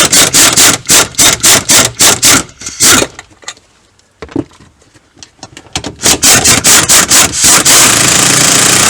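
3/8-inch impact wrench hammering on the 12mm nuts on top of a strut, loosening them in a rapid string of short trigger bursts, a pause, then more bursts. Near the end it runs steadily for over a second as a loosened nut spins off.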